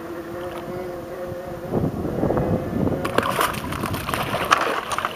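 A gar thrashing in a landing net at the water's surface: irregular splashing and sloshing that starts about two seconds in and goes on until near the end.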